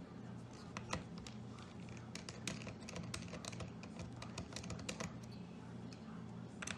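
Small irregular clicks and light taps of a small screwdriver working tiny screws out of a laptop's system board, over a low steady hum.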